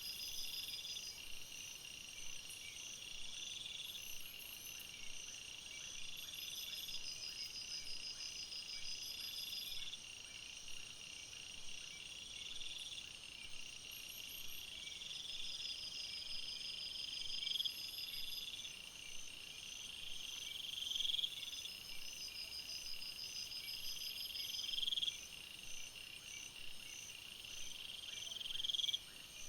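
Jungle night chorus of insects chirping and trilling steadily at several high pitches. Over it, a call repeats every three to four seconds, swelling louder and then cutting off abruptly.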